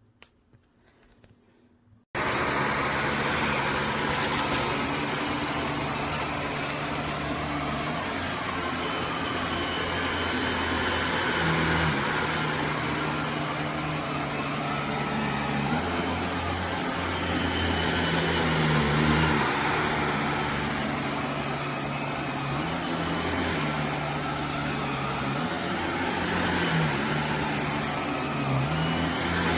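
A Shark NV360 Navigator Lift-Away upright vacuum cleaner switches on about two seconds in and runs steadily. Under the rushing airflow, its low motor hum steps up and down in pitch every few seconds.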